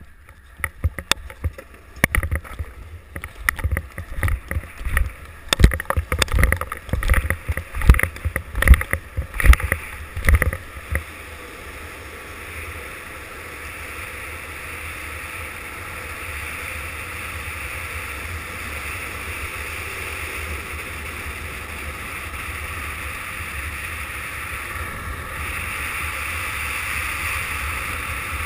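Longboard wheels rolling on asphalt and wind rushing over an action camera's microphone, growing to a steady, slowly louder rush as the board picks up speed downhill. For roughly the first ten seconds it is broken by loud, irregular thumps and buffets.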